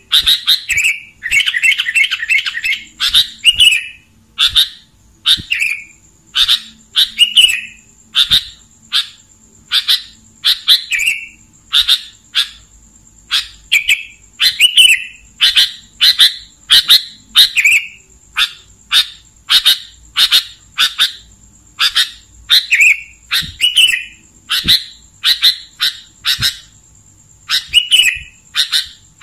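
Sooty-headed bulbul (kutilang) singing: short, clear chirping phrases repeated about once or twice a second, with a quick run of rapid notes near the start.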